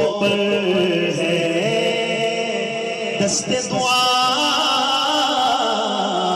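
A man's voice chanting melodically into a microphone, holding long notes that slide up and down in pitch.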